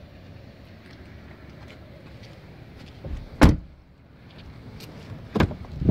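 A 2014 Jeep Compass side door slammed shut with one loud thump about three and a half seconds in, followed about two seconds later by a sharp click of a door latch and handling noise as a front door is worked.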